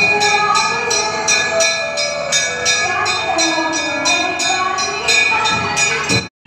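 Temple bells rung over and over in a steady rhythm, about three strikes a second, their ringing tones held between strikes, over the voices of a crowd. The ringing cuts off suddenly just before the end.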